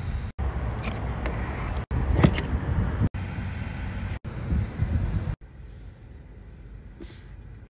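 Low rumbling noise of a phone recording inside a car cabin, broken by several sudden dropouts. It becomes much quieter for the last couple of seconds.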